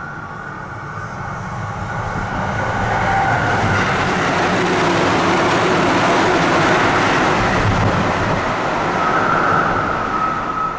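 Tsukuba Express train passing through a station at around 130 km/h without stopping. The rush of air and wheels on the rails swells over the first few seconds, stays loud while the cars go by, then falls away. A steady high tone can be heard at the start and again as the tail end passes.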